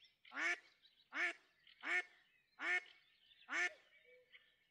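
A duck quacking five times in a steady, even series, about one quack every three-quarters of a second.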